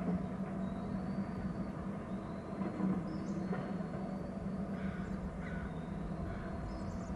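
Steady low outdoor background hum, with faint, thin, high whistled bird calls several times over it, some opening with a short upward sweep.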